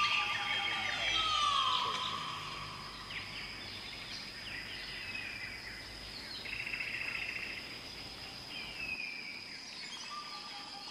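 Forest ambience: birds calling with falling whistled notes over a steady high insect drone, with a short buzzy trill about two-thirds of the way through.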